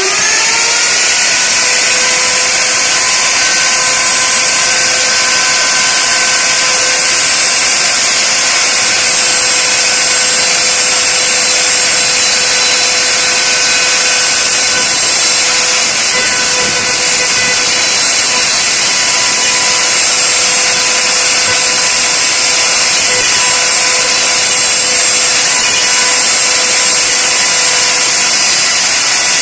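YILMAZ copy router's spindle motor spinning up and then running at steady high speed: a loud, even high-pitched whine over a hiss.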